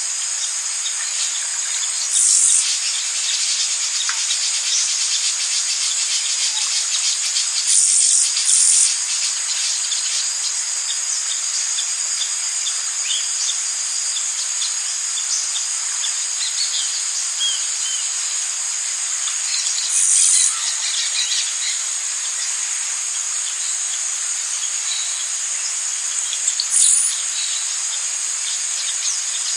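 Dense, steady high-pitched insect chorus of a tropical rainforest, with scattered faint bird chirps and a few brief louder bursts of the high buzzing.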